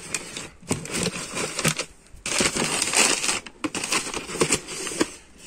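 Paper and plastic wrapping crinkling and rustling inside a cardboard shoebox, with a few sharp knocks and clicks of the box, as a sandal is packed away and the box handled.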